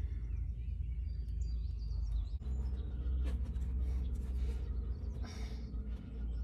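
Low wind rumble on the microphone, with a few bird chirps in the first second or two. Short scrapes and clicks from a hand filter wrench being worked on an oil filter come about two seconds in and again near the end.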